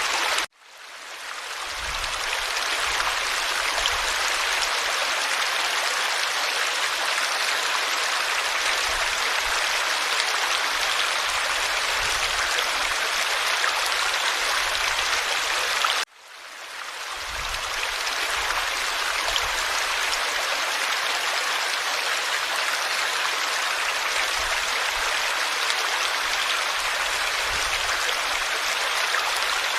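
Forest stream flowing, a steady rushing babble of water. It cuts out suddenly twice, about half a second in and about sixteen seconds in, and fades back up each time over a second or two.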